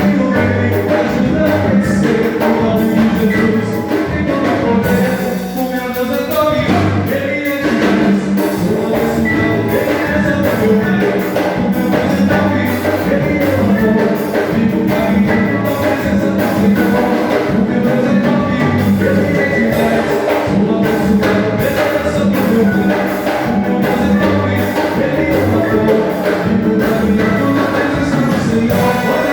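A live band playing a song in rehearsal, with drum kit, bass and other instruments and singing over them; the music thins out briefly about five seconds in, then carries on.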